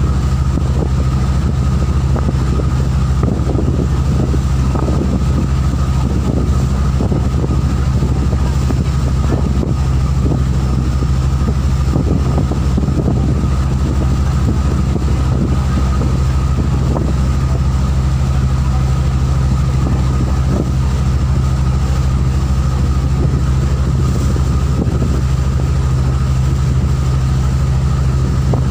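Motorboat engine running steadily as the boat cruises over open water: a constant low drone with a thin steady whine above it.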